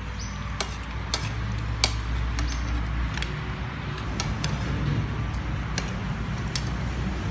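Metal cutlery clinking and scraping on dinner plates as people eat: a dozen or so irregular sharp clicks, over a steady low rumble.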